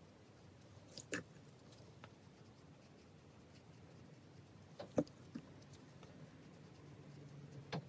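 Faint sound of a paintbrush wetting watercolour pencil on paper, with a few small taps, the loudest about five seconds in.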